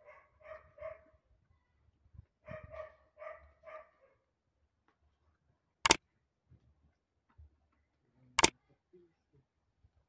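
A small dog yapping in two quick runs of short barks, about four a second, during the first four seconds. Later come two sharp click sound effects about two and a half seconds apart, the loudest sounds here, from an animated like-and-subscribe button being clicked by an on-screen cursor.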